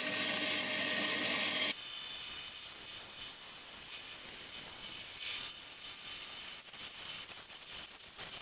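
Bandsaw running and cutting through a board of dry, hard wood. About two seconds in the sound drops abruptly to a quieter, steady cutting noise.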